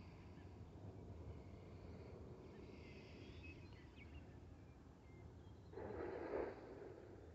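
Quiet rural evening ambience: a low steady rumble with faint, scattered bird chirps, then a louder, noisy sound lasting about a second near the end.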